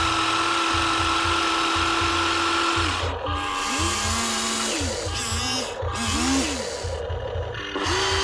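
Small electric motors and plastic gearboxes of RC construction models whining. One motor runs steadily for about three seconds, then several start and stop in short bursts, their pitch rising and falling with each move.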